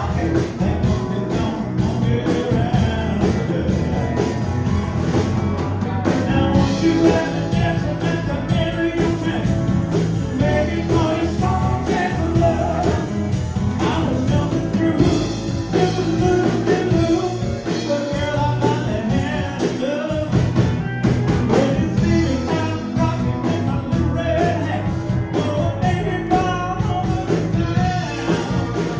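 A rock band playing a song, with a lead singer over drums and keyboard, continuously.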